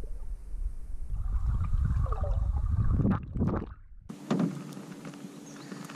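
GoPro recording underwater: a muffled low rumble with gurgling water, churning harder about three seconds in. About four seconds in the sound cuts abruptly to open air, with a faint steady hum and a few light clicks.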